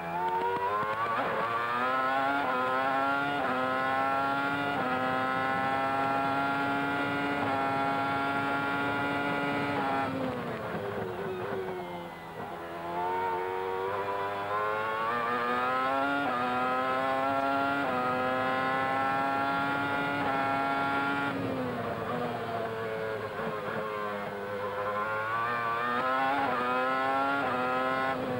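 Heard from onboard, a 2000 McLaren Formula One car's Mercedes 3.0-litre V10 at full throttle, its pitch climbing in steps through upshifts and then holding high. About ten seconds in it drops sharply as the car brakes and downshifts, then climbs through the gears again, with a few quick rises and falls near the end through a twisty section.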